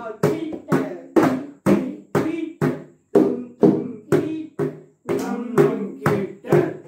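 Several mridangams played together, steady strokes about two a second, each ringing with the drum's pitched tone, as a lesson exercise in Adi talam.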